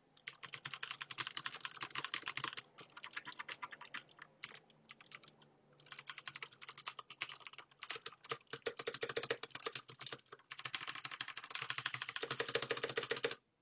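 Fast typing on an XPG Summoner mechanical keyboard with Cherry MX Blue switches: a dense run of clicky keystrokes, rather loud, with a brief pause about five and a half seconds in.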